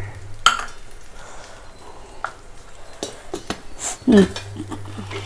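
Scattered clinks and knocks of kitchen utensils on a plate and mixer jar as grated coconut is added to the jar, with a brief vocal sound about four seconds in.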